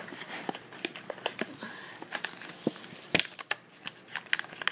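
A Hot Wheels blister pack, plastic bubble and card backing, being handled and pulled open by hand: irregular crinkling and sharp clicks, the loudest a little after three seconds in.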